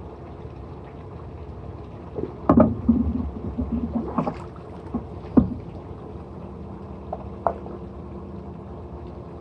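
A steady low hum with a knock about two and a half seconds in, followed by a short rattle and two more knocks, and a lighter knock near the end.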